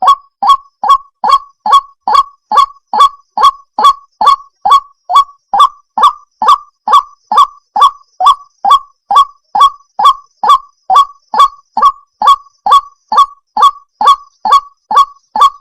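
White-breasted waterhen (ruak-ruak) calling: one short, loud note repeated steadily, a little over twice a second. The calling starts suddenly out of silence.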